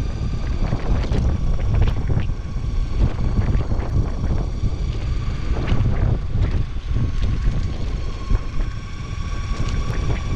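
Wind buffeting the action-camera microphone with a heavy low rumble while an electric skateboard rolls along an asphalt path. Scattered sharp clicks come through, over a faint steady high whine from the board's electric motors.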